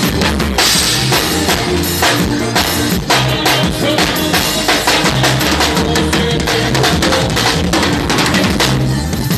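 Live band music during a sound check, with a drum kit playing a steady beat of about two strokes a second over a moving bass line.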